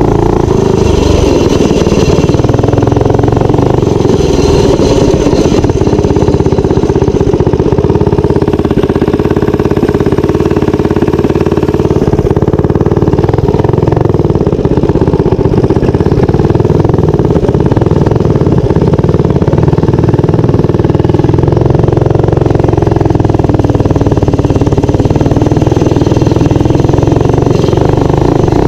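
Minibike's small engine running loud and close as the bike is ridden, its speed holding fairly steady with small rises and dips.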